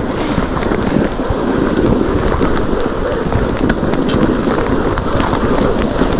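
Wind rushing over the microphone of a camera on a fat bike in motion: a steady rumbling hiss, with scattered small clicks and crackles as the bike rolls over the snowy trail.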